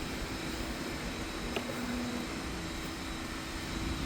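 Sewer jetter's pressure-washer units running steadily at high pressure (about 4,000 psi) while the nozzle clears the line: a steady mechanical hum with a held tone. One short click comes about one and a half seconds in.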